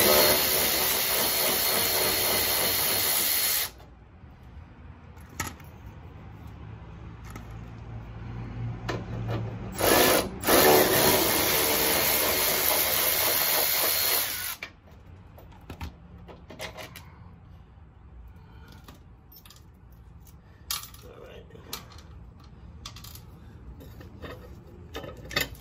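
A cordless power ratchet runs in two steady spells, about four seconds at the start and about five seconds starting some ten seconds in, as it backs out the bolts holding a car's rear license plate and bracket. Between and after the runs there are light metallic clicks and clinks as the loosened hardware is handled.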